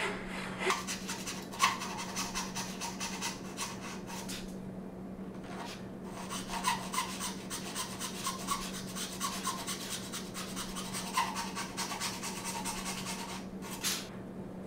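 Fine-toothed Cosman dovetail saw ripping tail cuts into the end of a board with quick back-and-forth strokes. There is a short pause about four and a half seconds in and another near the end.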